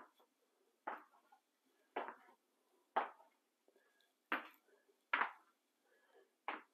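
Footsteps on a freshly poured, wet epoxy floor: seven sticky steps at a walking pace, about one a second.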